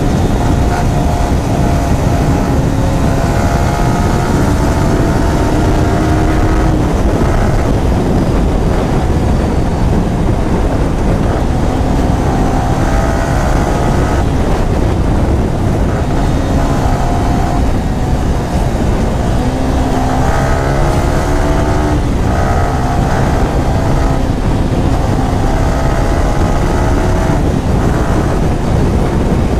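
Motorcycle engine running at road speed, its pitch rising and falling every few seconds with the throttle, under heavy wind rumble on the microphone.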